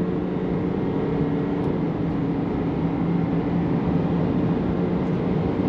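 3.0 L LM2 Duramax inline-six turbodiesel in a 2022 Chevrolet Silverado, running at a steady speed with an even exhaust note and no revving.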